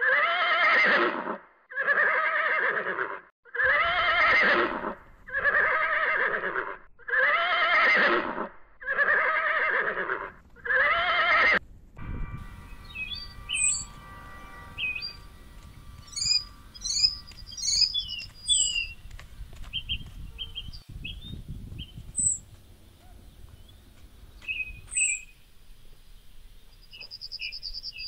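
A horse neighing, the same loud neigh repeated seven times about a second and a half apart. It stops abruptly about twelve seconds in, and scattered short bird chirps and whistles follow over a faint background.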